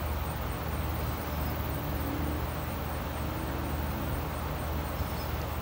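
Outdoor background: a steady low hum and rumble with a faint, even, high-pitched ticking about four times a second.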